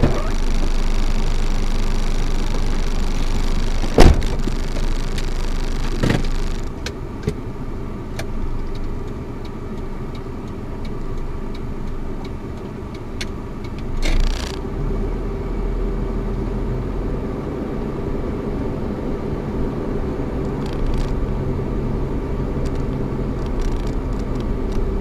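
Car running steadily, with a sharp knock about four seconds in and smaller knocks later.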